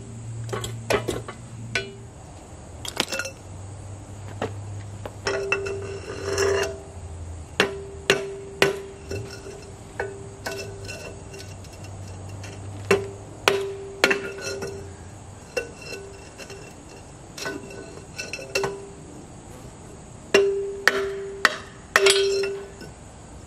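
Repeated metal-on-metal knocks at uneven intervals, many leaving a short ringing tone. A steel jack stand handle is being driven against an inner axle seal inside the tube of a Dana 60 front axle housing to knock the seal out.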